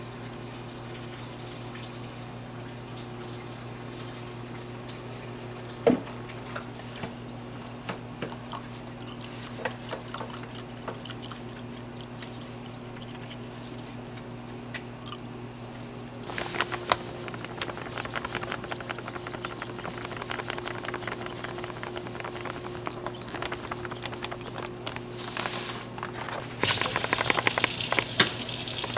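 Milk poured from a paper carton into a metal saucepan, a steady pour over a low, even hum. Near the end a louder rustle and hiss as powder is tipped from a plastic bag into the pot.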